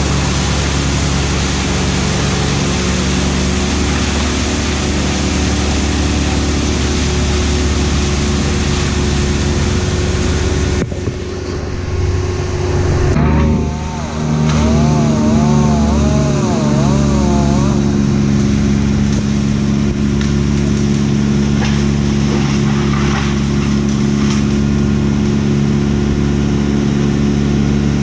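An engine running steadily, probably tree-work machinery. Its sound changes abruptly about eleven seconds in, and a warbling tone rises and falls for several seconds soon after.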